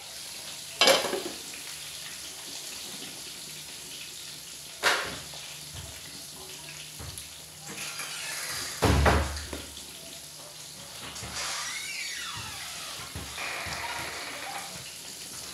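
Cookware clatter at a gas stove: sharp knocks about a second in and near five seconds, and a louder, deeper thump about nine seconds in, over a steady hiss of cooking.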